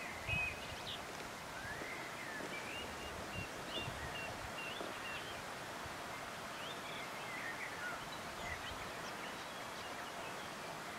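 Outdoor evening ambience: scattered short bird chirps and whistled calls over a steady rustling hiss. A few dull low thumps stand out, the loudest just after the start.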